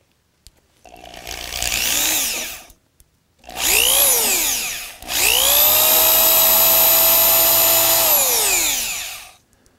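Cordless drill run three times with its bit against a steel frame beam, marking small starter indentations for bolt holes. Each run rises in pitch as the motor spins up. The last is the longest, holding steady for a few seconds before it winds down.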